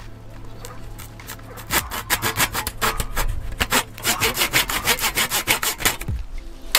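Rapid, rhythmic scraping against a wooden board, like sawing, about six strokes a second, starting about two seconds in and stopping shortly before the end.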